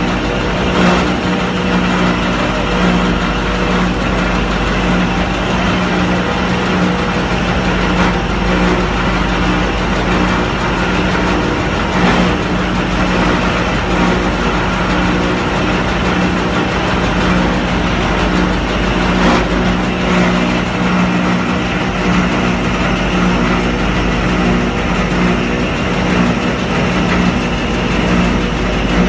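Scrap copper wire granulator running while scrap wire is fed into its crusher: a loud, steady machine hum over dense mechanical noise, with a few sharp knocks here and there.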